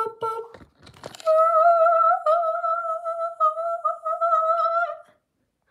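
A woman humming one long, high, nearly level note for about four seconds, starting just over a second in. Before it come a shorter hum and a few handling clicks.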